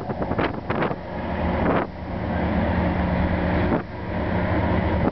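Wind buffeting the microphone over the steady drone of a diesel locomotive engine. The engine's hum stands out clearly for about two seconds in the middle.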